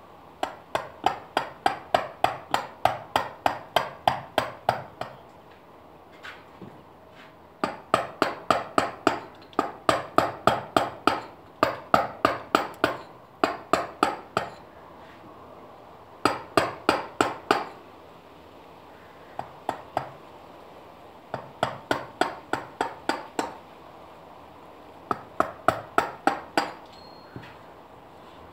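A mallet striking a chisel into limestone in runs of quick, sharp, even blows, about three to four a second. Short pauses fall between the runs as the chisel is repositioned.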